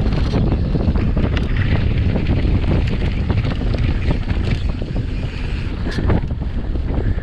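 Wind buffeting the microphone of a camera on a mountain bike descending fast, with the knocks and rattle of the bike running over rough, rocky ground.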